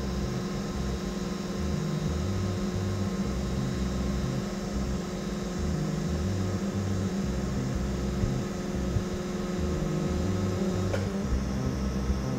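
TIG welding arc humming steadily, then cutting off about eleven seconds in as the arc is stopped, over background music with a low pulsing bass.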